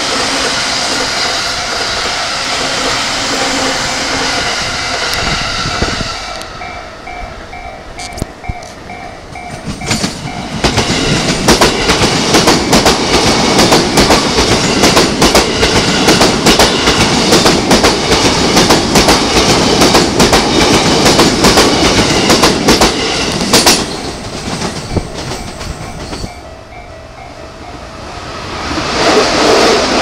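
Electric commuter trains passing at a level crossing. First an E231 series train runs by. A level-crossing warning bell then pulses in a gap. From about ten seconds in, a Sotetsu 12000 series train passes close by for over ten seconds, its wheels clicking rapidly over the rail joints. It fades out to the crossing bell again before another train comes in near the end.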